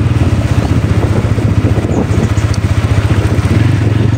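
Motorcycle engine running steadily while riding along slowly, a fast, even low pulsing throb.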